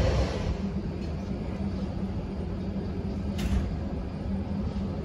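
Steady low mechanical hum and rumble of airport background noise heard through terminal glass, with a short hiss about three and a half seconds in.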